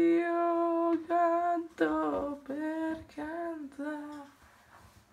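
A single voice singing: one long held note, then a run of shorter sung notes that trail off near the end.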